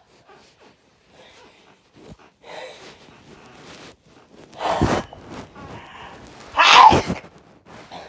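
Two loud sneezes about two seconds apart, after a quieter stretch of snuffling breaths: hay fever sneezing.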